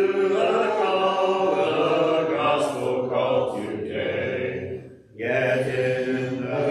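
Congregation singing a hymn a cappella, voices without instruments, led by a male song leader, with a brief pause between phrases about five seconds in.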